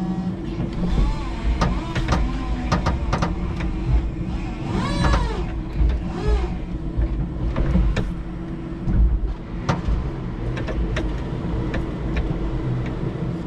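A 5-ton electric forklift truck working a load: its electric motors and hydraulics run with a steady hum and tone, with frequent knocks and clanks from the mast, forks and pallet as it lifts and carries a pallet off a trailer. A whine rises and falls about five seconds in and comes back briefly a second later.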